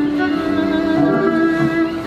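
Background music: a violin playing long held notes, with other strings behind it.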